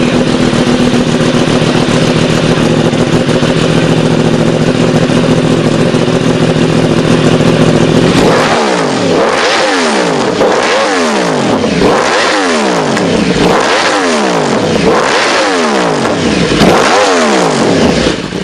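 Yamaha R1 sport bike's crossplane inline-four engine idling steadily just after starting, then revved about seven times in a row, each rev rising and falling in pitch, roughly every second and a half.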